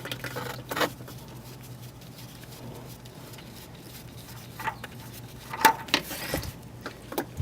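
Scattered faint clicks, knocks and scrapes of an oil filter being worked off by hand, over a steady low hum.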